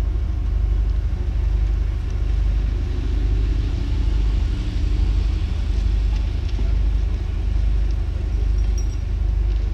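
Wheeled excavator's diesel engine running steadily, a constant low rumble.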